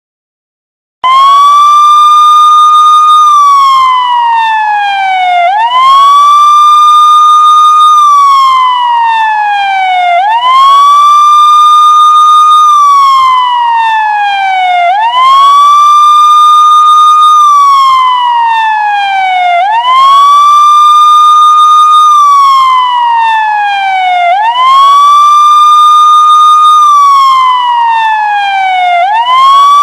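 Siren ringtone: a loud electronic wailing siren tone that starts about a second in and repeats about every four and a half seconds, each cycle rising quickly, holding its pitch, then sliding slowly down.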